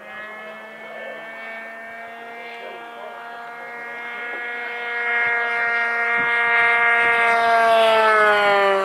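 Radio-controlled model airplane making a low pass: a steady, high-pitched engine-and-propeller drone grows louder as it approaches, then drops in pitch near the end as it goes by.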